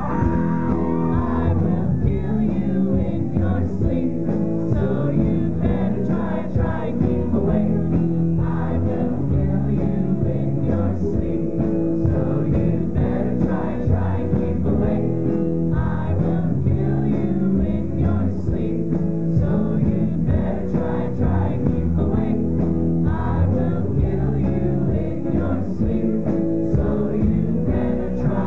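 Live rock band playing with sung vocals: electric guitar, electric bass, keyboard and drum kit.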